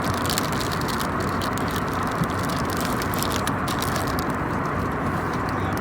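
Steady airliner cabin noise: the even rush of jet engines and airflow heard inside the cabin, with light crackles above it.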